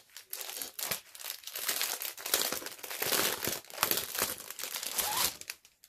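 Clear plastic packaging sleeve crinkling and rustling as it is pulled open and a fabric make-up bag is slid out of it, for about five seconds, loudest in the middle and dying away near the end.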